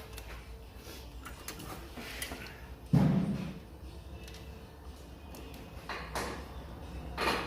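Hand work on car parts: scattered metallic clicks and knocks, with one heavy thud about three seconds in and two more knocks near the end.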